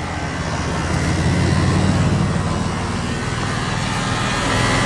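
2019 Ram's 6.7-litre Cummins inline-six turbodiesel idling steadily just after a cold start, with a faint whine above the diesel rumble. The owner cannot place it and says it almost sounds like a pump whining, perhaps the power steering.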